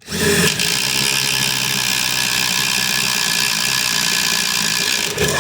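Ridgid subcompact brushless impact driver hammering continuously as it bores a 1/2-inch auger bit through a 4x4 of wood, with no pre-drilled pilot hole. It comes on at once at full speed and runs steadily as a loud, rapid rattling whine.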